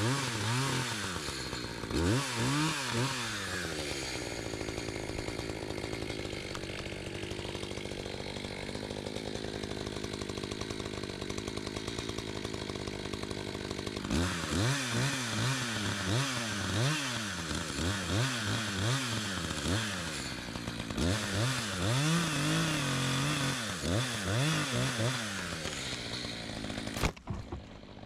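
Two-stroke chainsaw cutting into a dead tree trunk, its engine revving up and down in quick pulses of about two a second, with a long steady stretch of even running in the middle. It cuts off abruptly near the end.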